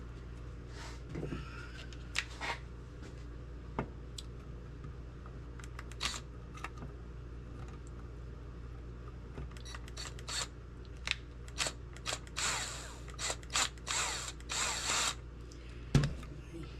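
Metal parts of an old lantern clicking and clinking as they are fitted back together by hand. A run of quick rattling scrapes comes near the end, then one sharp knock.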